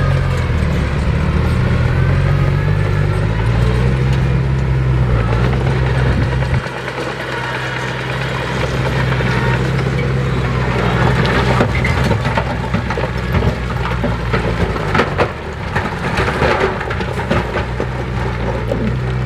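Heavy construction machine's diesel engine running steadily at first; about seven seconds in the low engine drone drops away, and over the second half irregular cracks and crunching noises take over, as of soil and debris being pushed and crushed.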